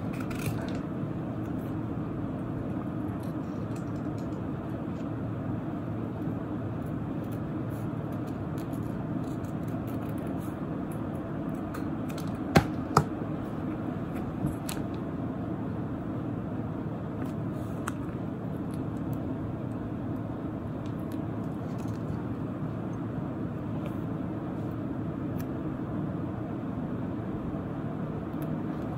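Steady low background rumble, even and unchanging, with two sharp taps a little under halfway through and a fainter tap shortly after.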